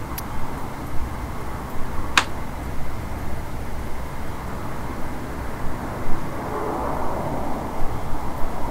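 Low, steady rumble of distant vehicles, with a single sharp click about two seconds in.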